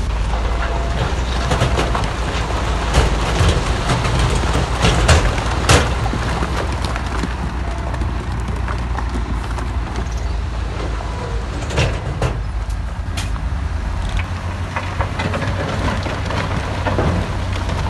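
Heavy dump truck's diesel engine running with a steady low rumble, with sharp clanks and knocks scattered through, the loudest about five to six seconds in.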